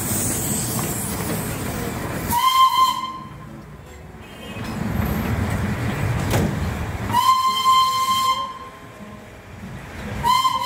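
Darjeeling Himalayan Railway steam locomotive No. 806 hissing steam, broken by three short, high whistle blasts about two, seven and ten seconds in, the middle one the longest.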